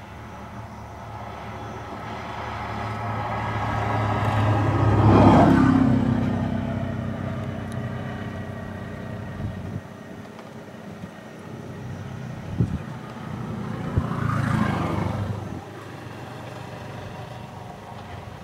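A motor vehicle passing by twice, its engine growing louder over a few seconds and then fading, loudest about five seconds in and again about fourteen seconds in. A few short knocks are heard just before the second pass.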